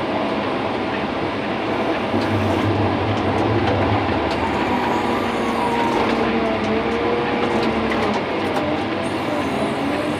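Heavy wheel loader at work: its diesel engine runs steadily under load, with a wavering whine over it.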